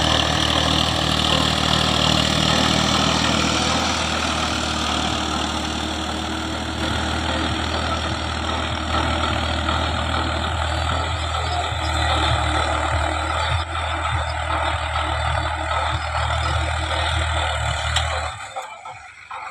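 Tractor engine running steadily at a constant speed, then cutting off suddenly near the end.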